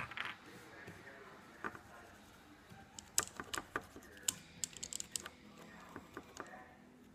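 A run of sharp, irregular clicks and light taps starting about three seconds in and lasting some three seconds, like small hard objects being handled.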